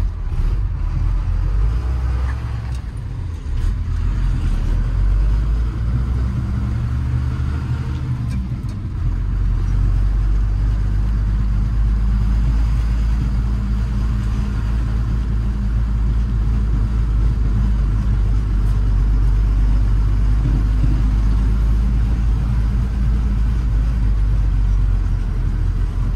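1995 Ford F800 dump truck's engine running as the truck drives, heard from inside the cab, with a steady low drone that gets louder about nine seconds in.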